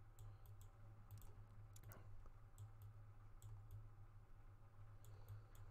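Faint, irregular clicking of a computer mouse, a few clicks a second, over a steady low hum.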